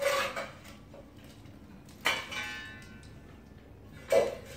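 A metal coal shovel scraping and clanking against the iron pan of hot coals as coals are scooped up, three times about two seconds apart; the middle strike rings briefly.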